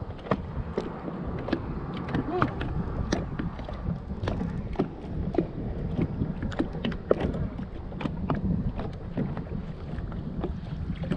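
Small waves lapping and slapping against a bass boat's hull, with a low wind rumble on the microphone and frequent small sharp knocks and clicks.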